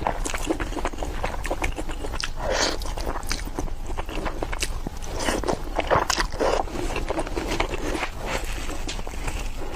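A person eating Indomie instant noodles close to the microphone: continuous wet chewing with many small mouth clicks. There are louder stretches about two and a half seconds in and again from about five to six and a half seconds in.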